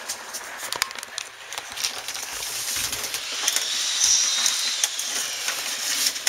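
Duct tape being pulled off the roll to seal AC ductwork. A long, high, screeching rip starts about three seconds in, after a few light clicks and knocks.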